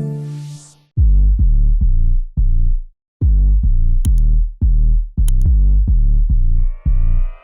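Electronic background music: a held chord fades out, then punchy bass-heavy beats in short bursts, with a rising synth sweep coming in near the end.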